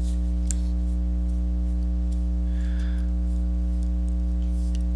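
Steady electrical mains hum, a low buzz with many evenly spaced overtones, with a few faint clicks.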